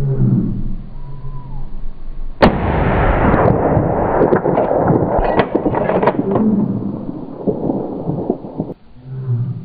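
A single shot from a hunting gun about two and a half seconds in, followed by about six seconds of loud rushing noise with several sharp cracks in it, which cuts off suddenly.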